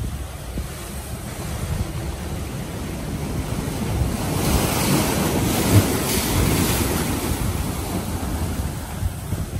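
Heavy surf surging and crashing among lava rocks, with wind buffeting the microphone. A wave rushes in and swells loudest about halfway through, then eases.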